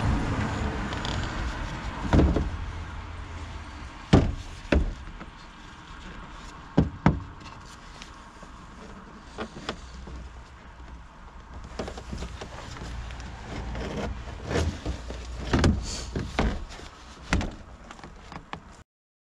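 Hard plastic knocks and clicks as a headlamp assembly is gripped and twisted by hand, trying to free its stuck rear cover; about a dozen sharp knocks come irregularly over a steady low rumble.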